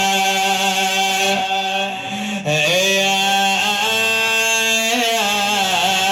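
A man's voice chanting a Shia elegy (rithā') for Imam Husayn in Iraqi dialect, drawing out long held notes with wavering ornaments. There is a short break for breath about two and a half seconds in.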